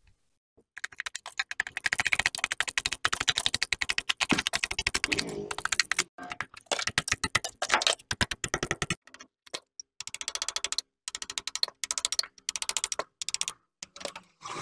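Hammer rapidly tapping a chisel, chipping old, crumbling plaster off a stone wall. The quick, even taps come in runs of a few seconds with short pauses between them.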